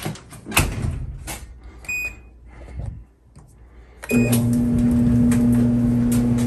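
A few knocks as the dryer door is shut and the machine handled, then a short control-panel beep and another about four seconds in as Start is pressed, after which the Whirlpool Cabrio electric clothes dryer starts up with a steady hum of motor and turning drum.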